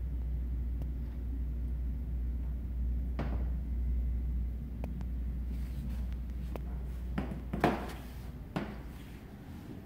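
Steady low rumble of a hand-held camera phone being moved, with scattered knocks and thumps from handling and footsteps. The loudest thump comes about three-quarters of the way through, and the rumble stops near the end.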